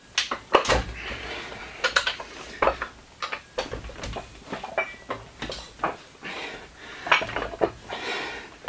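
Plate-loaded adjustable dumbbells being handled and hoisted, their iron plates clanking and clinking together in a series of irregular sharp knocks.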